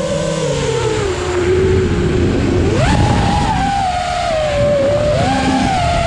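FPV quadcopter's brushless motors whining, the pitch sinking steadily as throttle comes off, then jumping up sharply about three seconds in as the throttle is punched, and wavering after that with small throttle changes.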